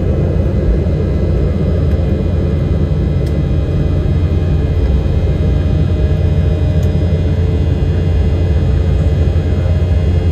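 Cabin noise of an Embraer 195 airliner, heard inside the cabin: a steady low rumble from its GE CF34 jet engines and airflow, with faint steady whining tones above it.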